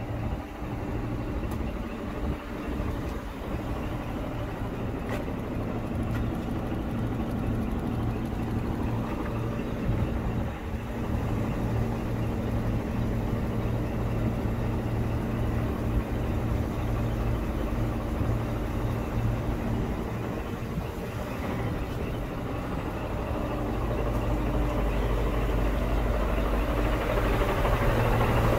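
Scania P 420 truck's diesel engine idling steadily, growing louder near the end.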